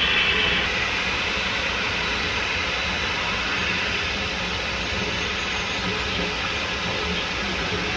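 Steady hiss of an airliner's jet engines over the low drone of a pushback tug's engine.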